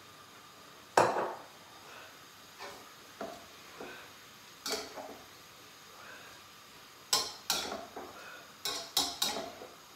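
Metal cooking utensil knocking and clinking against a wok and a metal bowl during stir-frying: a sharp knock about a second in, a few scattered clinks, then a quick run of clinks in the last three seconds.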